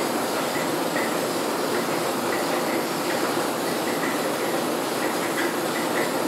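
Aerosol spray-paint can hissing in one steady, continuous spray.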